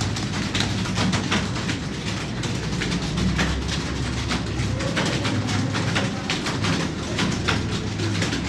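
Rapid, irregular keystrokes on a computer keyboard, several clicks a second, over a low hum.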